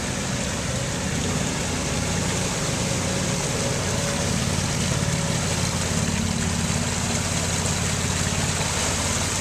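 Engines of amphibious 8x8 ATVs running steadily as the machines drive through shallow muddy water, a low even drone under a constant hiss of noise.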